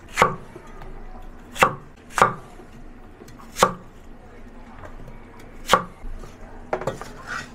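Chinese cleaver chopping peeled Chinese arrowhead corms on a round chopping board: about seven sharp, separate chops, unevenly spaced.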